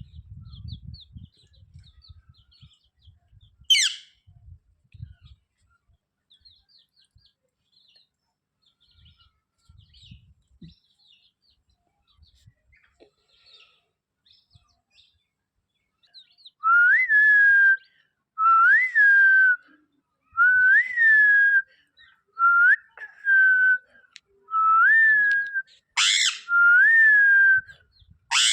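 Parrot whistling: faint chirps at first, one sharp falling squawk about four seconds in, then a loud whistle repeated about every two seconds over the last dozen seconds, each one rising quickly and then holding a steady note for about a second.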